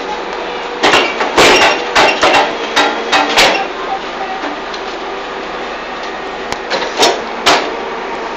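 Fly ash brick making machine running with a steady mechanical drone, broken by a run of sharp metallic clanks for a couple of seconds about a second in, and two more clanks near the end.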